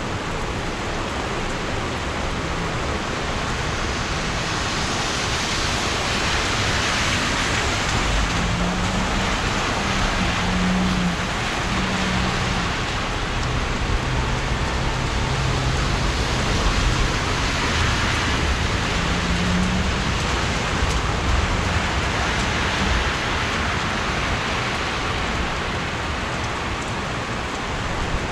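Heavy rain falling steadily, heard from under a patio umbrella, as a continuous hiss that swells and eases slightly. A low vehicle rumble with a faint hum rises under it from about eight seconds in and fades around twenty seconds.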